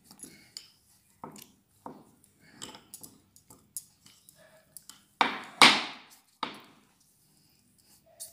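Hands kneading a soft sweet potato dough in a glass bowl: a run of short squishing and knocking sounds, with one louder noise lasting about a second just past halfway.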